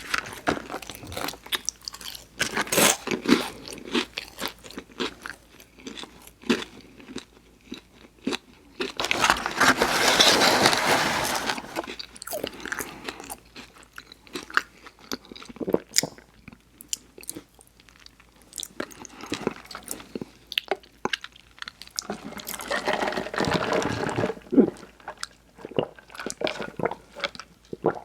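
Close-miked chewing and biting of a burger and fries, with many short crunches and wet mouth sounds. Two longer, denser stretches of noise come about a third of the way in and again near the end.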